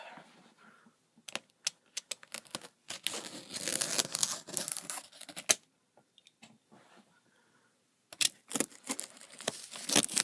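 A cardboard shipping box being worked open: sharp clicks and taps, then bursts of scratchy tearing and rustling as the packing tape and cardboard are cut and pulled, with a quiet pause in the middle.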